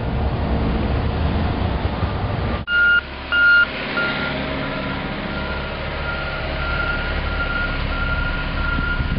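Low, steady rumble of heavy plant machinery. About three seconds in a vehicle's backup alarm starts beeping at one pitch and keeps repeating over the rumble; its first two beeps are the loudest.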